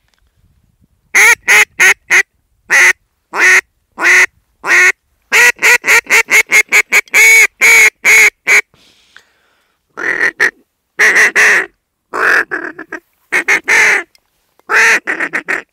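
Handheld duck call blown close by in loud nasal quacks, imitating a duck to draw birds in: a quick run of four, a few single quacks, a long fast run of about ten, then several shorter runs.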